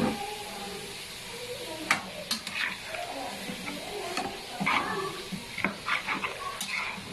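Marinated gizzards sizzling in oil in a wok. From about two seconds in, a metal spatula scrapes and clicks against the pan as they are stirred.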